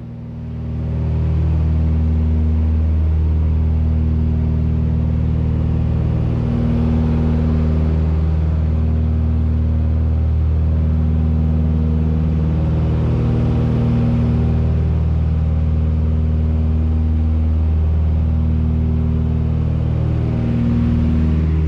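Cabin drone of a Britten-Norman Islander in cruise, its twin Lycoming O-540 piston engines and propellers running steadily. The deep hum swells and eases slowly every few seconds.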